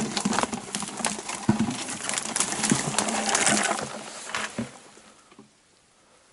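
Dry dead spruce twigs and branches crackling and snapping as someone forces a way through dense undergrowth on foot. The crackling lasts about four and a half seconds, then stops and it goes nearly quiet.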